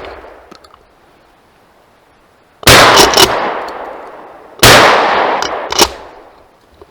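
Two gunshots about two seconds apart, each ringing out and echoing away for over a second, fired at grouse. A sharp click follows each shot.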